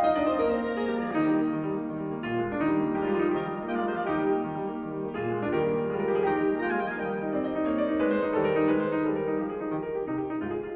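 Piano music, a steady run of held notes.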